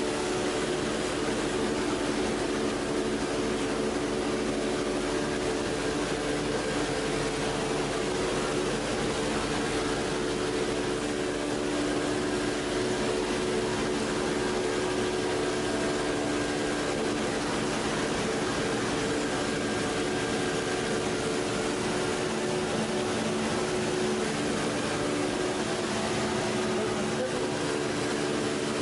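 PP/PET strapping extrusion line running: a steady machine hum with several held tones from its motor-driven rollers and winders, unchanging throughout.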